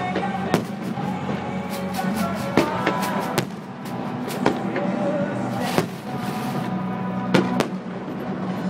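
Fireworks display: aerial shells bursting with sharp bangs about once a second, over steady background music.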